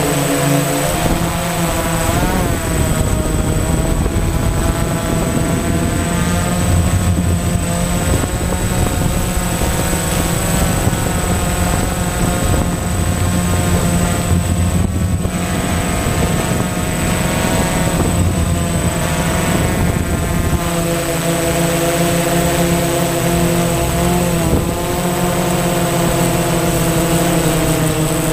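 A DJI Phantom FC40 quadcopter's motors and propellers whirring, heard from its onboard camera, several tones drifting up and down in pitch as it manoeuvres. Wind rumbles on the microphone through the first two thirds, and a steady high-pitched whine sits on top throughout.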